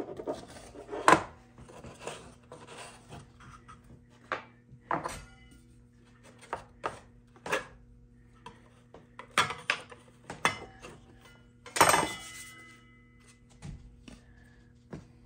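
Metal putty knife scraping and knocking inside a small wooden drawer as the old green lining is worked out: irregular scrapes and sharp knocks, the loudest about a second in and near twelve seconds. A faint steady hum runs underneath.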